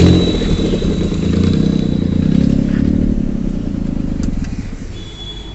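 Maruti Alto 800's three-cylinder petrol engine running with a loud, raspy exhaust leak at the exhaust manifold, whose studs have broken. The note swells about two seconds in and eases off near the end.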